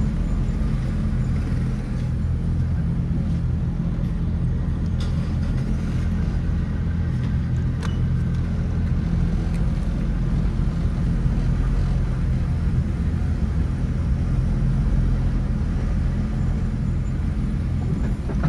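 2006 Honda Fit with its L13 four-cylinder engine being driven: steady engine and road rumble, with a few faint clicks.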